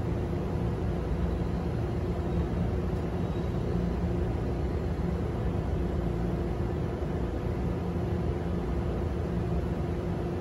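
Steady low machine hum with a soft hiss and a few unchanging tones.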